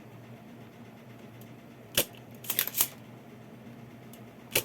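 Spring-loaded desoldering pump (solder sucker) snapping as it is fired at solder joints, to free the amplifier's faulty 455 IC. It gives sharp clicks: one, then a quick run of three, then one more near the end. Its suction is weak.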